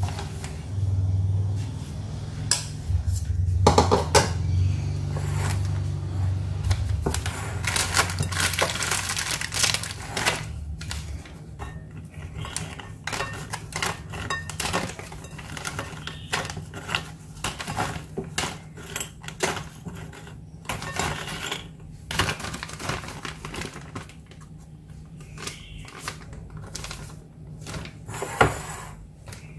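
Oreo cookies clattering against a glass bowl as they are picked out by hand and put into a plastic bag: a run of irregular clicks and clinks. A low hum runs under them for about the first ten seconds.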